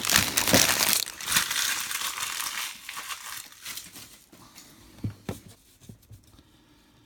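A trading-card pack wrapper crinkling loudly as it is opened and crumpled, fading after about three seconds to a few soft handling clicks.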